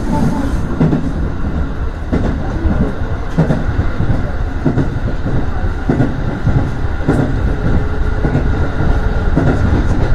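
Aonami Line electric train running, heard from inside its cab: a steady rumble of wheels on rail, with irregular clacks as the wheels pass over rail joints and points.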